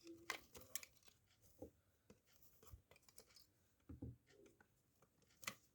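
Faint, scattered clicks and soft rustles of a plastic toy RC car and its packaging being handled, about half a dozen small knocks spread through a near-silent room.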